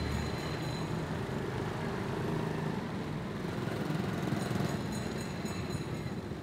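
Street traffic: small motorbike engines running and passing in a steady rumble.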